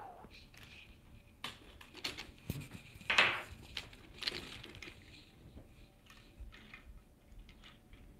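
Handling noise from the phone camera and its mount: scattered light clicks, knocks and rustles, the loudest knock about three seconds in.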